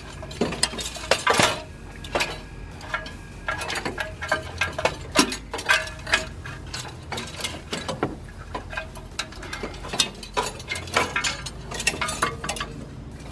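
Irregular metallic clicks, clinks and knocks of hand tools and metal fittings being worked on the injection pump of a 6.2 Detroit diesel engine while it is unbolted for removal.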